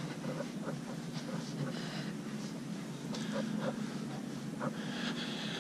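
Indoor room tone: a steady low hum with a few faint, short sounds scattered over it.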